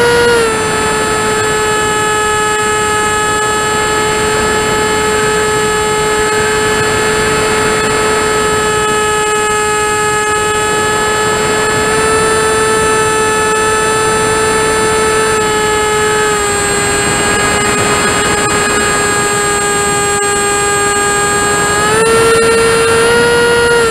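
Model aircraft's motor and propeller running, heard from a camera mounted on the plane: a steady pitched tone with overtones over airflow noise. The pitch drops slightly just after the start and about two-thirds through, and rises about halfway and again near the end as the throttle is changed.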